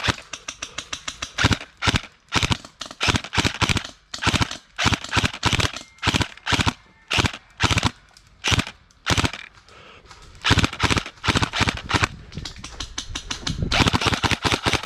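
Airsoft electric rifles (AEGs) firing in repeated bursts of rapid shots with short pauses between them, an exchange of fire.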